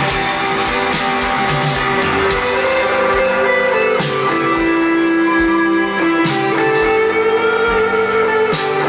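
Live rock band playing an instrumental passage: electric guitars holding long ringing notes over drums, with a sharp drum or cymbal hit about every two seconds in the second half.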